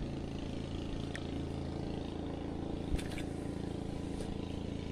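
Engine running steadily with an even low hum. A faint click comes about a second in and a sharp click about three seconds in, as a spinning-reel rod is cast.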